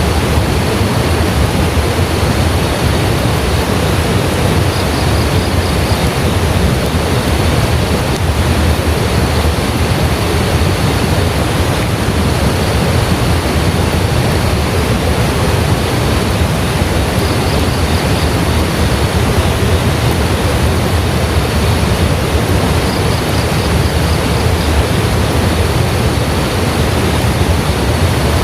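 Heavy rain falling steadily, a loud, even rushing with no breaks. Faint high-pitched trills recur every few seconds above it.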